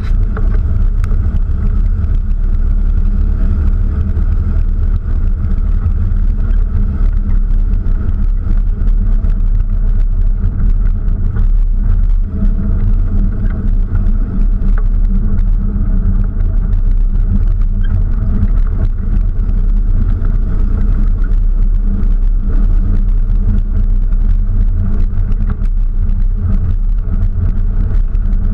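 An open-top off-road vehicle driving along a dirt road: its engine runs steadily, with a heavy low rumble beneath it and the tyres rolling on dirt and gravel, picked up by a camera mounted on the outside of the vehicle.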